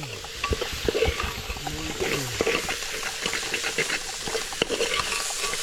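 Food frying with a steady hiss while a utensil stirs and scrapes in the pan, giving many irregular clicks and knocks.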